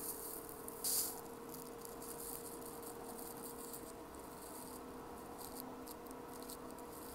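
Fingers scratching and rubbing a long-haired cat's fur close to the microphone: a soft, uneven scratchy rustling, with one louder rustle about a second in. A faint steady hum runs underneath.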